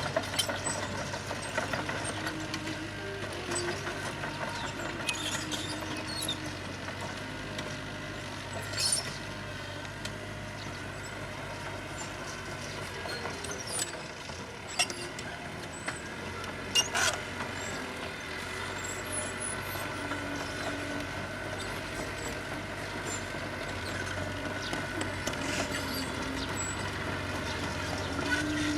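Heavy diesel road-construction machinery running steadily, with a few brief sharp sounds about 9, 15 and 17 seconds in.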